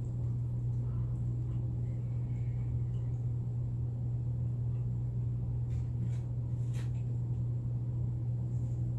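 A steady low-pitched hum, with a few faint short clicks a little past the middle.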